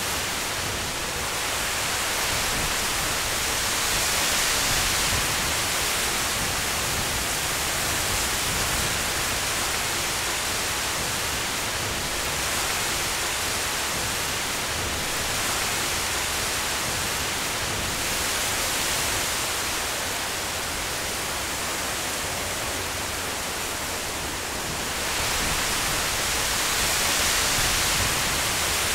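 Strong wind gusting through trees and grass, a steady rushing that swells several times.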